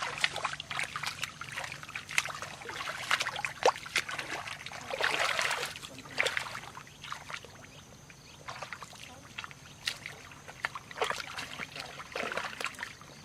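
Water trickling and splashing, with many scattered sharp clicks and knocks and a louder splashy patch about five seconds in.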